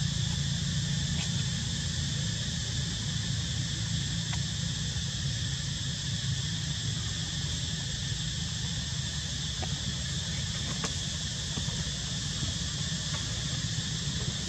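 Steady outdoor ambience: a constant high-pitched insect drone over a low, steady rumble, with a few faint clicks.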